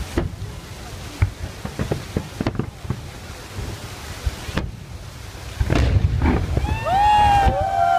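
Fireworks shells bursting in a string of sharp bangs and crackles, growing louder and denser about six seconds in. Near the end, several drawn-out, high cries rise over the bangs.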